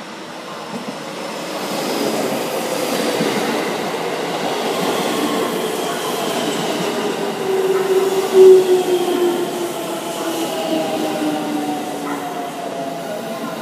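JR Central 313 series electric train running in along the platform and slowing, its inverter-driven traction motors giving off a whine of several tones that fall steadily in pitch, over wheel and rail noise. It is loudest about eight seconds in as the cars pass close by.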